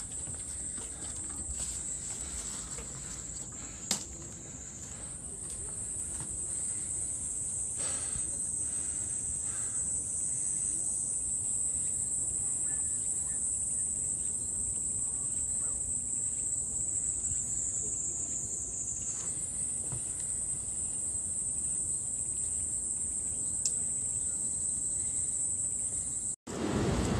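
A chorus of insects giving a steady, high-pitched drone that shifts slightly in pitch a few times. Near the end it cuts off abruptly and a louder low rumble begins.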